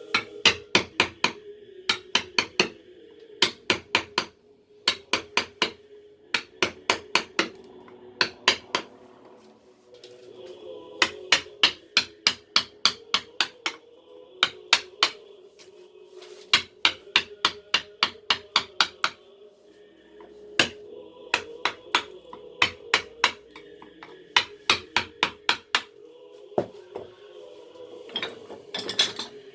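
Mallet tapping a carving chisel into wood: sharp strikes in quick bursts of three to eight, about four or five a second, with short pauses between bursts.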